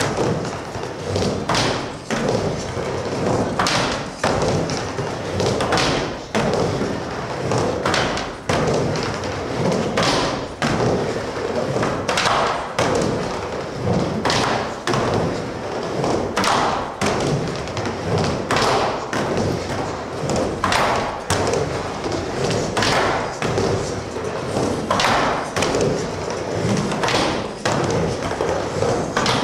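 Skateboard riding back and forth on a wooden mini ramp: the wheels rumble steadily, and thuds and knocks come every second or two as the board strikes the ramp's lip and lands back on the wooden surface.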